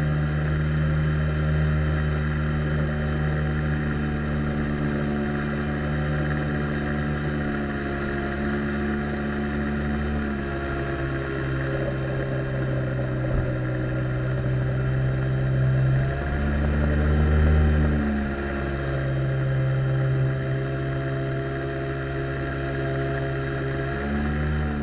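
Outboard jet motor driving an inflatable boat under way. Its engine speed dips about ten seconds in, climbs again around sixteen seconds, then eases off and picks up once more near the end. One short knock comes midway.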